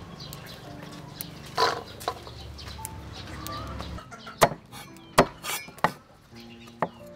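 Chickens clucking and small birds calling over a steady low hum. About four seconds in, a cleaver starts chopping lemongrass on a wooden chopping board: a handful of sharp chops, about a second apart, over soft background music.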